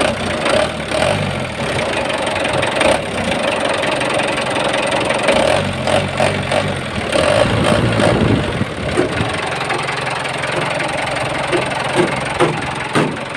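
Mitsubishi 4D34T four-cylinder turbo diesel engine running with a knocking sound. The knock was first taken for a worn connecting rod bearing, but the rod bearings measured good clearance.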